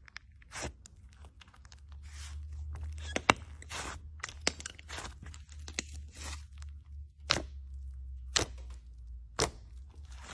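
Slime being squeezed and stretched by hand, making irregular crackling sounds with several sharp pops.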